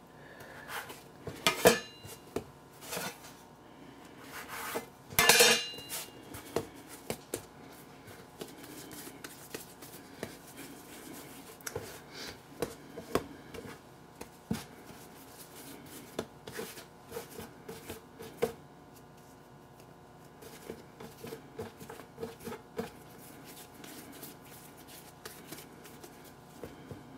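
Metal bench scraper cutting through bread dough and knocking on a wooden board, with scattered light clicks and scrapes; two louder knocks come in the first few seconds. Soft rubbing of hands shaping the dough pieces runs beneath.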